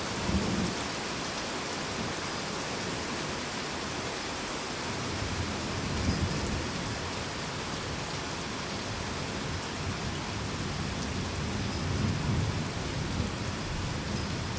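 Heavy rain falling steadily in a thunderstorm, with thunder rumbling low in the background and swelling a few times, about half a second in, around the middle and near the end.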